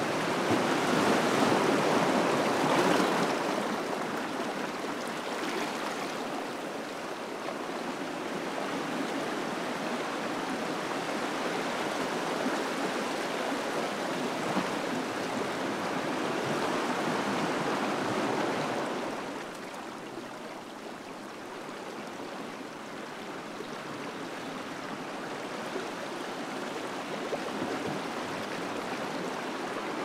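Small ocean waves washing in among shoreline rocks, the water rushing and swirling between them and draining back. The wash is loudest in the first few seconds, swells again midway, then eases off about two-thirds of the way through.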